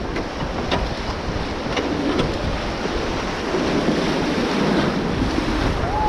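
River rapids rushing and splashing against an inflatable raft as it runs white water, with wind buffeting the microphone.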